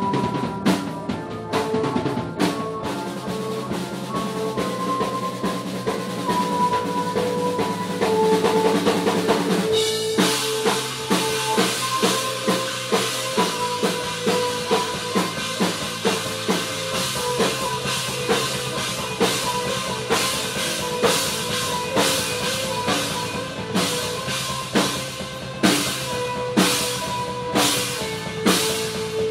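Punk band playing live: a drum kit keeps a steady beat under electric guitars and bass. The music gets louder and fuller about ten seconds in.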